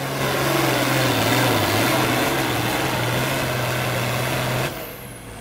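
International 966 pulling tractor's diesel engine running flat out under load while it drags a weight-transfer sled, with a steady held note. Near the end the engine is throttled back and drops sharply to a quieter, lower run, and a faint high whine falls away.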